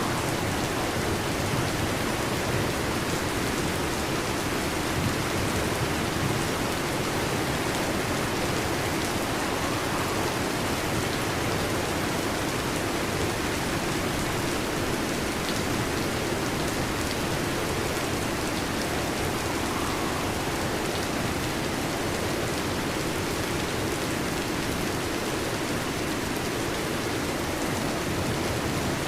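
Heavy rain falling steadily, an even unbroken hiss with no thunder.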